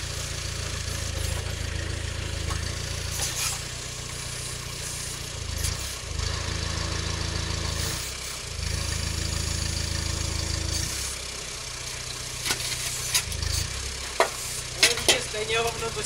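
Vlčnovjan 4x4 compact tractor's engine running steadily while it drives the backhoe's hydraulics, its low hum shifting in level every few seconds as the arm works. Sharp knocks and clatter come in near the end.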